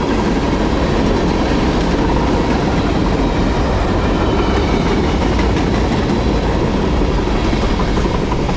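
Freight cars of a manifest train rolling past close by: loud, steady noise of steel wheels on the rails with a running clatter of the cars.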